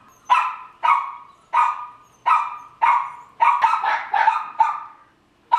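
Border terrier barking repeatedly, about ten short sharp barks roughly half a second apart, quickening in the middle and pausing briefly before one more near the end.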